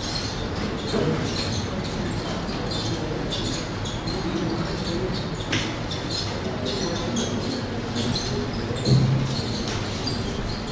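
Steady hall hiss with soft footsteps, shuffling and scattered knocks as people move to and from a wooden lectern, a sharp click about halfway through and a brief murmur of voices near the end.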